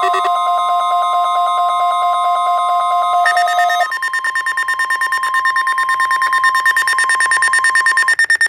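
NOAA Weather Radio 1050 Hz warning alarm tone held steady for about eight seconds, the test of the station's alarm signal, with other beeping tones layered over it. Some of the extra tones drop out about four seconds in, and a rapid pulsing beep carries on until everything cuts off suddenly.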